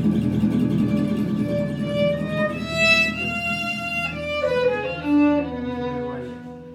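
Live acoustic trio of violin, acoustic guitar and upright double bass playing; the bowed violin carries the melody over guitar and bass, sliding between notes in the second half, and the music grows quieter near the end.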